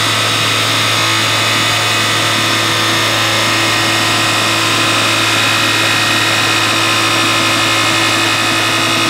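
Native Instruments Massive software synth playing a dubstep wobble bass, a dense steady screamy buzz with its LFO wobble rate set toward the fast end, over a sine sub-bass doubling the notes.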